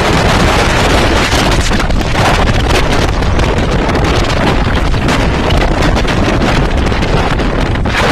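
Loud, steady wind buffeting the microphone of a camera riding in a moving Jeep.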